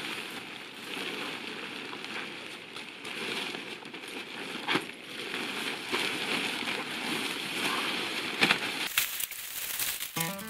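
Rustling and flapping of the fabric of a one-pole tent being shaken out and spread on the ground, with a few sharp snaps. Music comes in right at the end.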